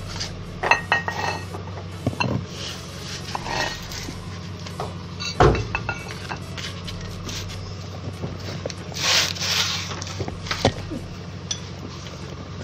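Metal hand tools clinking and knocking against the car's underside as a wrench works a fitting, with one sharper knock about five seconds in, over a steady low hum.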